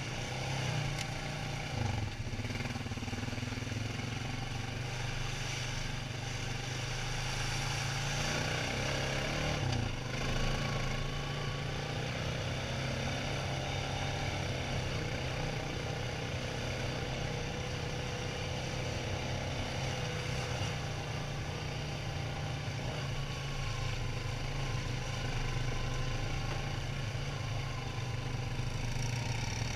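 ATV engine running steadily under way, heard from a camera mounted on the quad itself, with a couple of brief knocks about 2 and 10 seconds in.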